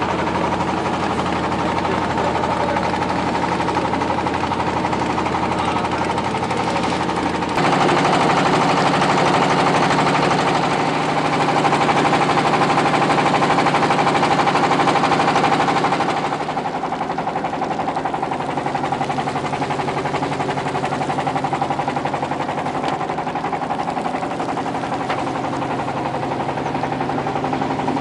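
Engine of a motor boat running steadily under way, a loud, even chugging drone. The note steps up and gets louder a little over a quarter of the way in, then drops back a little past the middle.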